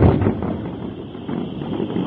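Distant fireworks display: a heavy burst at the very start, then a dense low rumble of overlapping shell bursts that eases off about a second in and picks up again near the end.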